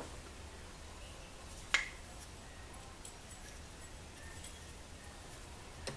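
A single sharp click of small parts being handled, about two seconds in, as the spinner's flyer and drive end are fitted together, over quiet room tone with a low hum.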